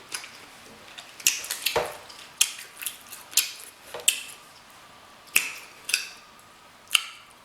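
Close-miked mukbang eating of king crab and seafood boil: wet chewing and lip smacks, with about a dozen sharp, unevenly spaced clicks and snaps.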